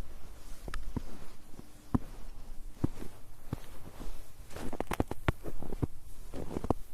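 Footsteps crunching in snow on a snow-covered road: sharp, uneven crunches that come closer together in the second half.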